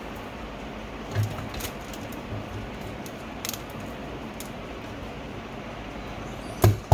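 Small blue desk stapler being worked on a strip of paper: a few light clicks and taps, then one loud clack near the end as it is pressed down.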